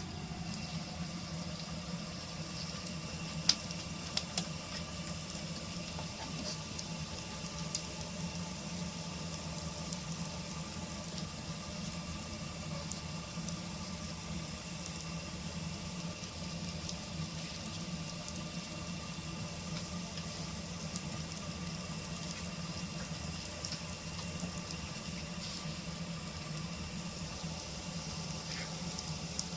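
Takoyaki batter sizzling steadily in a hot takoyaki pan over a low electrical hum, with a few light clicks about four seconds in.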